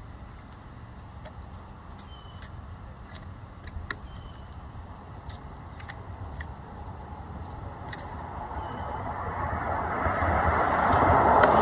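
Pileated woodpecker pecking at wood: irregular sharp taps, several a second at times, over a steady low rumble that grows louder over the last few seconds.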